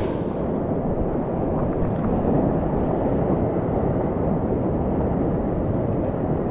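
Rushing white water of a shallow river rapid, a steady dense roar heard close up from a kayak; the sound turns duller about a second in.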